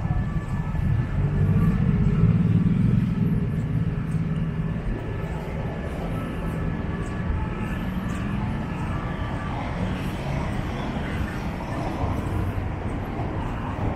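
Road traffic rumbling steadily, with one vehicle's engine passing close and loudest about two seconds in.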